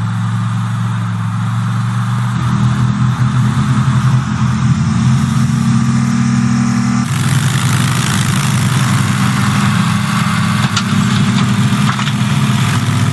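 Vehicle engines running on the road: a steady low engine drone whose pitch and character shift abruptly about two seconds in and again about seven seconds in.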